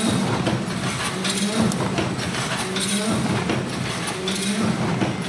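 Automatic wire mesh welding machine running in its weld cycle, repeating about once a second: a short low hum with each cycle, with metallic clicks and clanks between.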